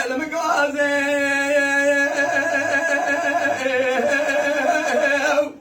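Dengbêj singer's male voice holding one long, slightly wavering note in traditional Kurdish sung style, cutting off shortly before the end.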